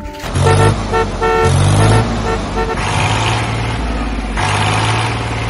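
Vehicle horn beeping in a quick run of about six short toots, then a steady low engine-like rumble that swells and dips.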